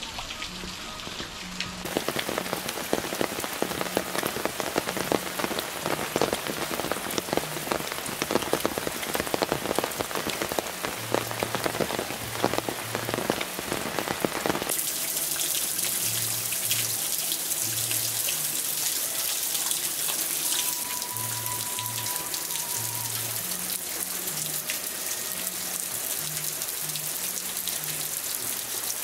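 Steady rain falling. Through the first half, close drops strike a nearby surface in a dense patter; about halfway the sound changes to an even, brighter hiss of rain falling over open fields.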